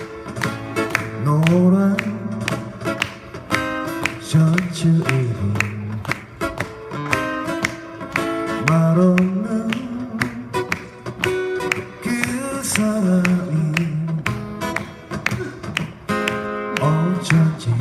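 Acoustic guitar strummed in a steady rhythm under a voice singing the melody, a live song performance.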